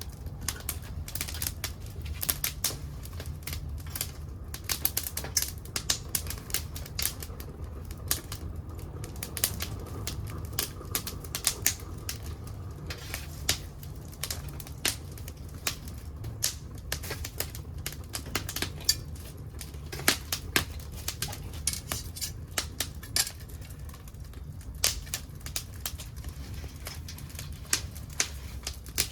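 Wood crackling and popping sharply and irregularly as old furniture wood burns in a secondary-combustion wood stove, over a steady low rumble of the fire.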